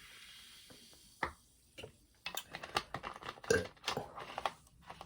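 Irregular light clicks and taps, a lone one about a second in, then a busy run of several a second from about two seconds in.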